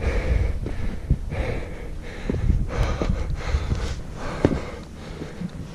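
Heavy, hard breathing of a tired climber scrambling over rock, a breath roughly every second. Wind rumbles on the microphone, and there are a few sharp knocks against the rock.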